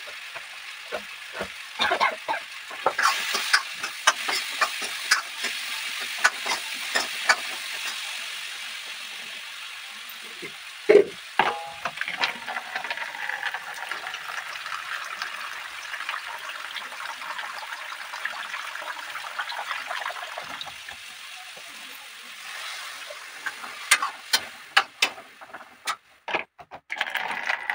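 Vegetables frying in a pan: a steady sizzle with repeated knocks and scrapes of a spoon stirring them. One louder knock comes about eleven seconds in, and a quick run of clicks comes near the end.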